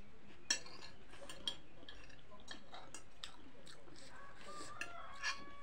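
Metal spoon and fork clinking and scraping on a ceramic plate, a few sharp clinks with the loudest about half a second in. Near the end a rooster starts crowing, one long held call.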